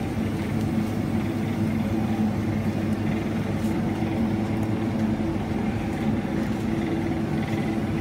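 Supermarket background: a steady hum from the refrigerated display cases, with the low rumble of a shopping trolley being pushed along the aisle.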